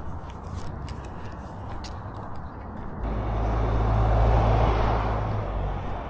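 A car passing by: its engine and tyre noise comes in about halfway through, swells to the loudest point, then fades. A few light clicks come before it.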